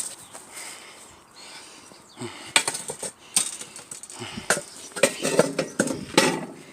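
Metal parts of a scrap fire guard clinking, clattering and scraping against each other and the stone as they are handled, with a run of separate sharp knocks that thickens in the second half.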